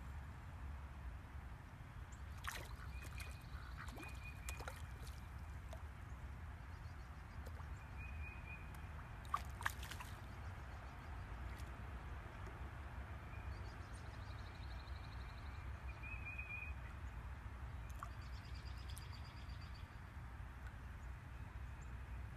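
Calm lakeside ambience: a steady low rumble under short, high wildlife chirps that recur every few seconds, with a couple of quick trills. Scattered soft clicks, and two sharp clicks close together about halfway through.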